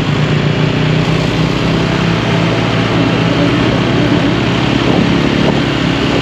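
Motorcycle engine running at a steady cruising speed, with wind and road noise.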